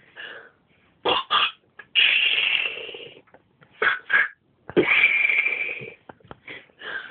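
A man imitating gunfire with his mouth: quick pairs of sharp spat bursts and two longer hissing blasts that trail off, about two and five seconds in.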